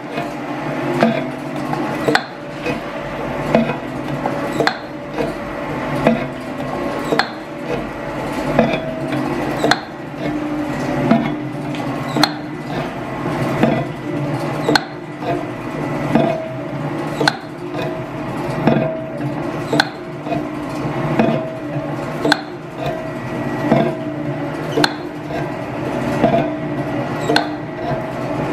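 Metal shaper taking cuts on a welded steel engine base, a regular clunk of the stroke about once a second over steady machine running. The cuts flatten the weld-warped box, taking out the distortion.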